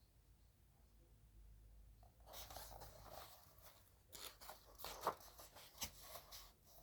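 Faint rustling and crinkling of paper book pages being handled and turned, with a few small clicks, starting about two seconds in.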